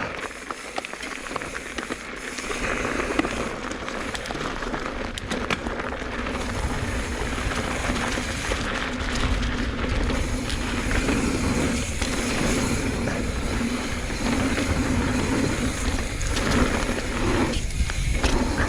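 Wind rushing over a helmet-mounted camera's microphone, mixed with the rumble of mountain bike tyres rolling over a dirt trail on a downhill run. It grows louder over the first few seconds as the bike gathers speed, then holds steady.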